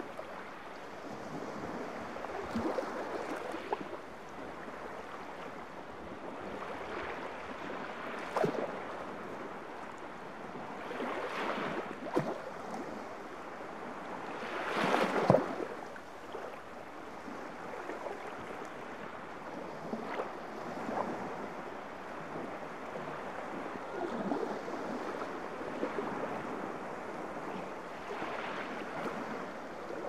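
Small waves of the calm Baltic Sea lapping and washing up a sandy beach, surging every few seconds, with the loudest wash about halfway through.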